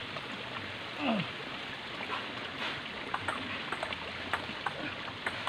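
Table tennis rally: the celluloid-type ball clicking sharply off paddles and the table, roughly three hits a second, starting about three seconds in. A brief cry with falling pitch about a second in.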